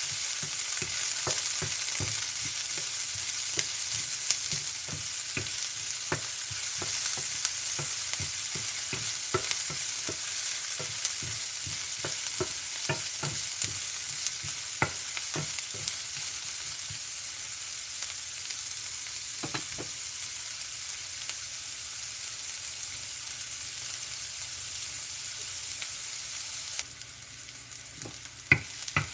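Chopped onion frying in hot oil in a stainless steel pan, a steady sizzle, while a wooden spatula stirs it with frequent scraping clicks and knocks against the pan. The sizzle drops sharply near the end.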